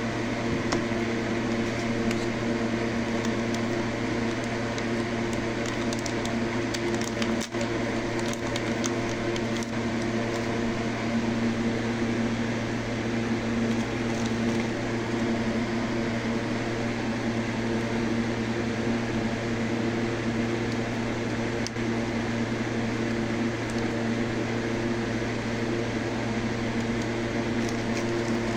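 A steady mechanical hum with a low electrical buzz, with a few faint clicks and taps a quarter of the way in as small electronic parts are handled on a desk.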